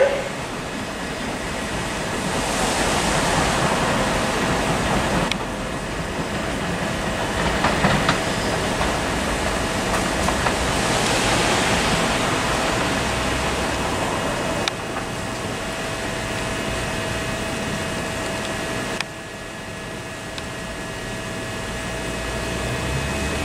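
Southeastern Class 375 Electrostar electric multiple unit pulling away, with a steady whine over rolling noise.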